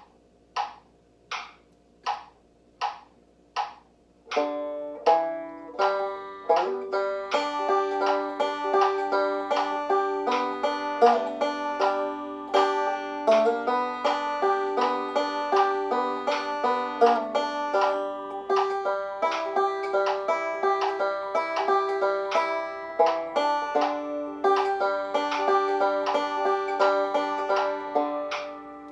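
A metronome ticks steadily on its own for about four seconds. Then a banjo comes in, picking a tune at a steady tempo.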